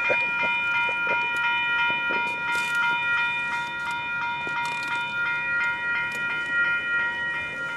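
Freight train of tank cars rolling through a level crossing, its wheels clicking over the rail joints, with a steady high ringing tone throughout.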